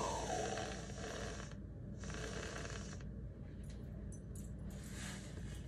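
Aerosol whipped-cream can spraying into the mouth: a hiss with a tone that falls in pitch over the first second, stopping about a second and a half in. A second short spray follows about two seconds in, then fainter hissing.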